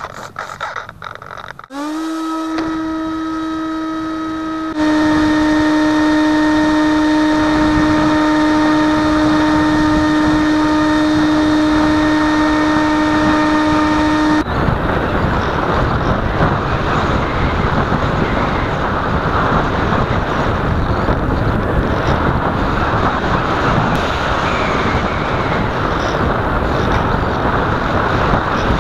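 Electric motor and propeller of a Skysurfer RC glider spinning up to a steady whine a couple of seconds in, stepping louder a few seconds later. About halfway through the motor cuts out and only the rush of wind over the plane's on-board camera remains as it glides.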